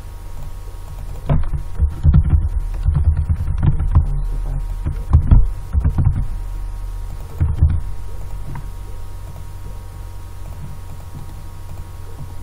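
Typing on a computer keyboard, picked up as irregular dull thumps and a few clicks in clusters from about one to eight seconds in, over a steady low electrical hum.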